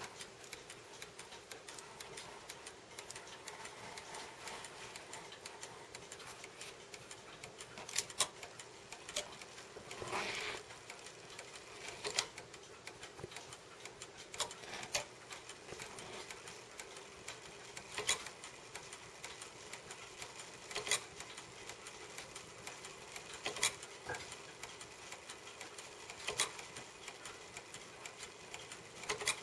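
A 1910s Junghans wall-clock movement, out of its case, running its works with a fast, dense mechanical ticking. A louder click comes about every three seconds, and there is one short rasp about ten seconds in.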